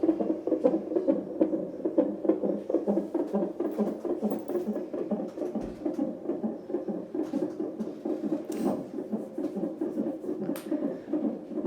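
Fetal heartbeat picked up by a CTG monitor's Doppler ultrasound transducer: a fast, even, pulsing whoosh, with a few faint clicks.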